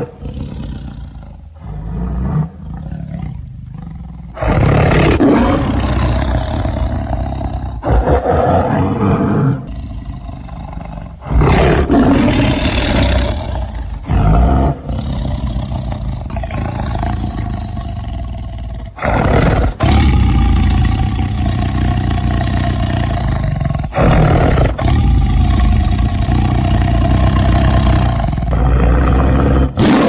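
Tiger roaring again and again: a long series of loud, deep roars with sudden jumps in loudness between them.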